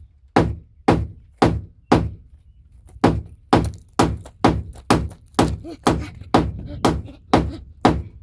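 Hammer blows on wood, about two a second, with a short pause about two seconds in.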